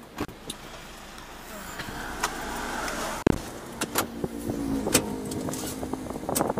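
Inside a moving car: steady engine and road noise with scattered clicks and knocks, and one sharp thump a little over three seconds in.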